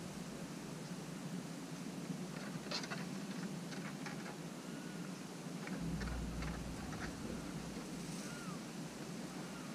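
Outdoor ambience: a steady hiss with a low rumble that swells briefly about six seconds in. Faint scattered clicks and a few short, thin chirps come between about two and seven seconds in.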